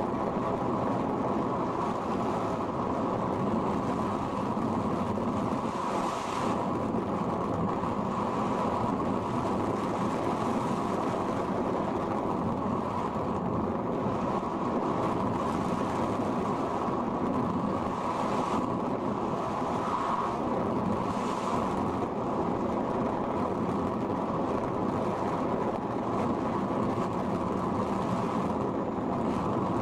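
Steady rushing airflow and wind noise on the microphone of an RC sailplane's onboard camera in gliding flight.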